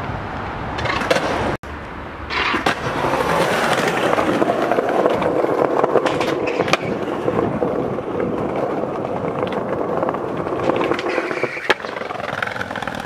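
Skateboard wheels rolling over paving slabs, a steady rolling rumble broken by a few sharp clacks of the board hitting the ground.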